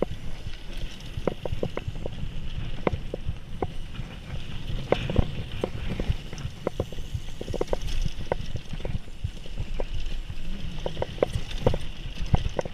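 Mountain bike descending a dirt flow trail: a steady rumble of tyres on the trail surface, broken by frequent irregular rattles and knocks from the bike over bumps.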